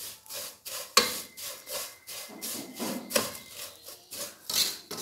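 Spatula stirring and scraping vermicelli fried in ghee around a pan, in repeated short rubbing strokes.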